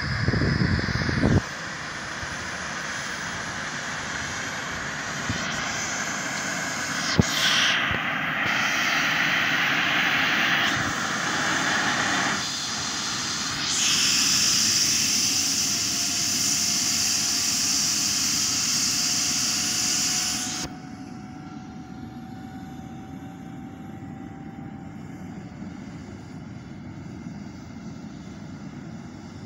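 Airbus H135 helicopter's turbine engines starting up: a steady turbine rush with a high whine gliding upward as the engines spool up. Wind buffets the microphone in the first second or so, and the whole sound turns abruptly quieter about two-thirds of the way in.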